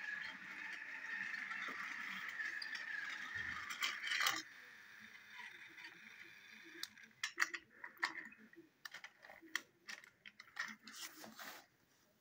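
Battery-powered Hit Toys Duncan toy engine running along plastic track: a steady whirring motor with light plastic rattling, which stops about four seconds in. After that come scattered light clicks and knocks.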